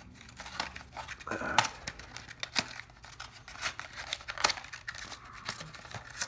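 Paper and plastic card packaging rustling and crinkling in hands, with scattered short clicks and light tearing as trading-card packs are opened.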